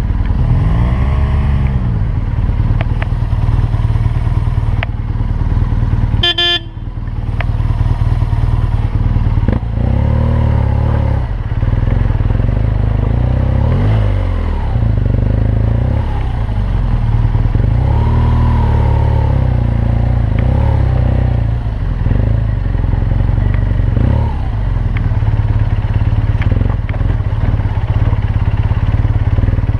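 BMW R1200GS motorcycle engine being ridden, the revs rising and falling again and again with the throttle, over a heavy low rumble.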